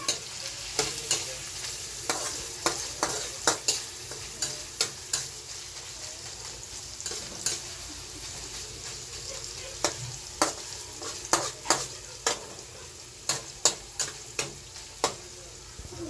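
Shredded chicken sizzling in a wok while a metal spatula stirs it, with frequent sharp clicks and scrapes of the spatula against the pan over a steady frying hiss; the clicks come in irregular clusters, sparser in the middle.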